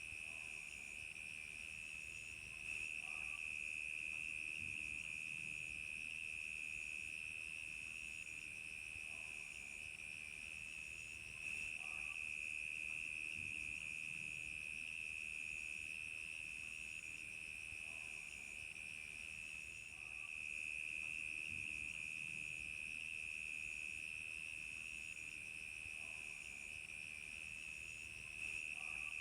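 Crickets chirping: a steady, unbroken high trill, with a higher chirp pulsing about once a second over it. The overall level steps up slightly about every nine seconds.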